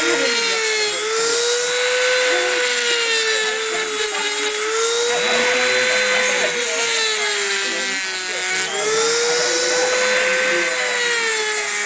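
Dremel rotary tool with a cut-off disc grinding through the rock base of a coral. It gives a steady high whine over a gritty grinding hiss, and the pitch sags and recovers every few seconds as the disc bites into the rock.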